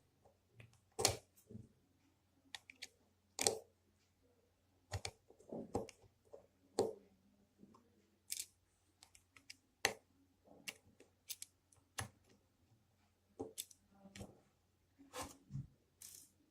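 Faint, irregular clicks and scrapes of a small tool prying at the plastic casing of a cheap MP3 player, about twenty short snaps spread unevenly throughout.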